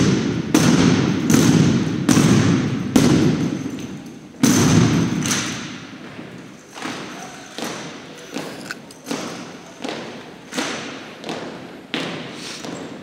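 An armed drill team striking in unison with rifles and boots on a hardwood gym floor, each hit echoing in the hall. Loud strikes come about every 0.8 s for the first few seconds, then a steady run of lighter knocks about every 0.7 s.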